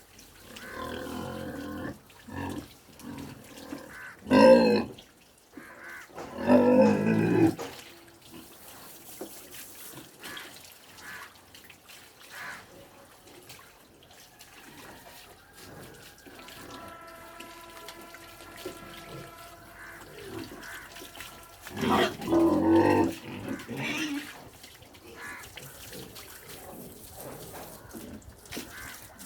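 Pigs grunting, with three loud squealing bursts: around four seconds in, around seven seconds, and around twenty-two seconds.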